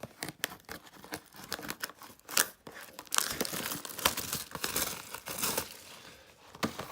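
A retail trading-card box being torn open by hand: packaging tearing and crinkling, with scattered sharp crackles and then a denser stretch of tearing from about three seconds in until nearly six.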